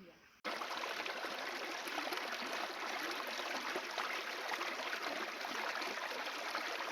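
River water running, a steady dense splashing noise that starts abruptly about half a second in.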